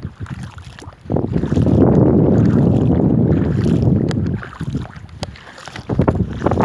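Wind buffeting the microphone in gusts: a low rumble that swells about a second in and holds for some three seconds, drops away, then rises again near the end.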